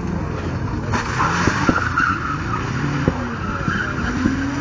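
Car engine revving up and dropping back repeatedly as the car is driven hard through gear changes, with hissing tyre skid noise from about a second in.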